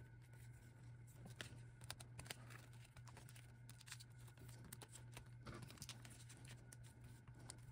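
Faint, irregular clicks and crinkles of clear plastic photocard sleeves being handled and slid into a binder's plastic pocket pages, over a low steady hum.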